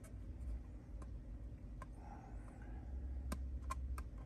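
Faint, irregular light clicks as fingers and fingernails pick at the adhesive tape backing on a plastic carbon-fibre-look dash trim piece, three of them close together near the end, over a low steady background rumble.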